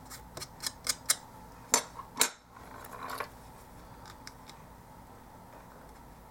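Small hard plastic kit parts and a small metal hand tool handled on a work mat: a quick run of light clicks, two sharper clicks about two seconds in, and a short scratchy rustle near three seconds.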